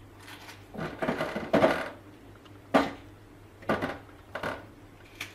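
Tomatoes and red peppers handled on a metal baking tray and dropped into the plastic bowl of a food processor: several irregular knocks and clatters.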